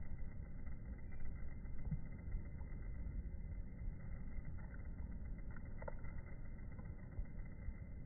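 Steady low outdoor rumble of background noise, with a faint short sound about six seconds in.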